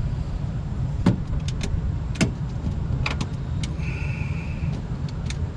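Sharp clicks and clinks of metal parts and hand tools against a car door during a power window regulator installation, about ten in all, the loudest about a second and two seconds in, with a short high whine just before the end, over a steady low rumble.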